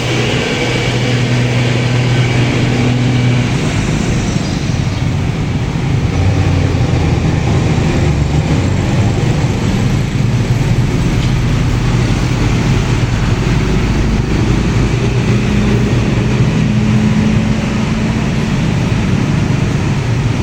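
Road traffic: motor vehicle engines running and passing, with a steady engine hum that drops to a deeper rumble partway through.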